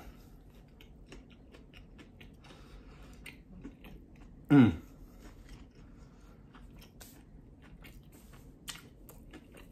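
A man chewing a mouthful of crispy fried chicken sandwich with pickles, with faint scattered wet clicks and crunches. About four and a half seconds in comes a brief loud hummed "mmm" that drops in pitch.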